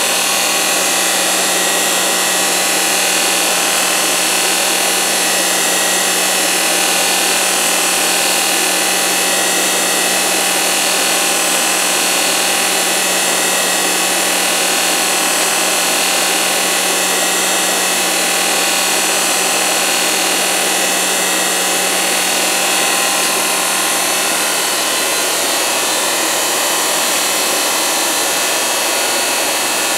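Cincinnati Heald 273A internal grinder's grinding spindle running at speed: a steady, loud whine and hiss from the machine, with a low hum that fades out near the end.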